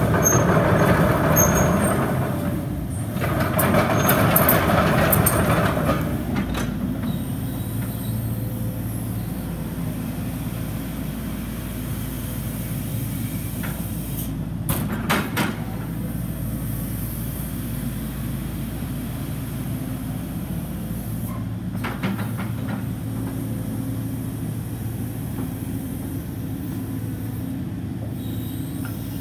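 A 2014 Hitachi ZX135US excavator's four-cylinder diesel engine running. It is louder for the first six seconds, with a brief dip near three seconds, as the machine works its hydraulics, then settles to a steady lower drone. A few short metallic knocks sound around the middle and again a little later.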